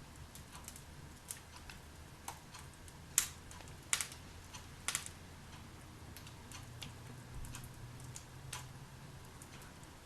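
Burning logs crackling in a fireplace: irregular sharp snaps and pops, the loudest a few close together around the middle, over a faint low hum.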